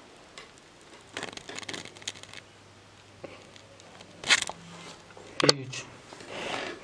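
Faint crumbling and rustling of moulded kinetic sand as fingers press and dig into it, with scattered small crackles and two louder scrapes about four and five and a half seconds in.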